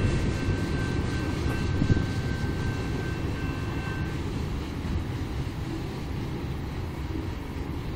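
Norfolk Southern diesel-hauled freight train rumbling along the track, the sound slowly fading. A faint steady high whine runs over it and dies out about halfway through.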